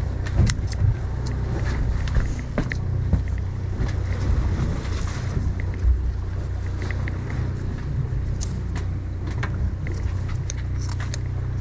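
Steady low hum of the fishing boat's machinery, with scattered short clicks and knocks on deck.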